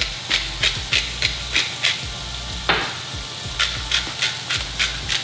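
Lean ground beef sizzling steadily in a hot pan, with two runs of quick crunching clicks from hand-held salt and pepper grinders twisted over it. The second run starts about three and a half seconds in.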